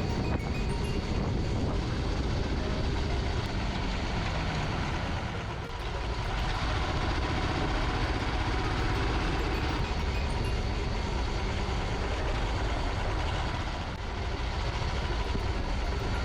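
Metro train running between stations, heard from inside the coach: a steady rumble and hiss of wheels on rail and running gear, with a slight dip in level twice.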